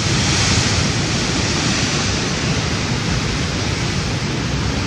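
Sea surf washing against the rocks below, a steady rushing noise with no break.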